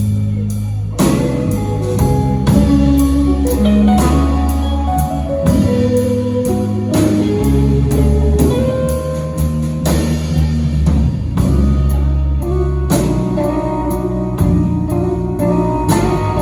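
Live blues band playing a slow blues: electric guitars over bass guitar and a drum kit.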